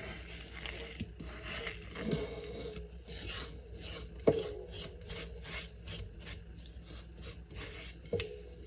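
Fingers scraping sticky sourdough dough from the inside of a ceramic mixing bowl in quick, repeated rasping strokes, with one sharp knock about four seconds in.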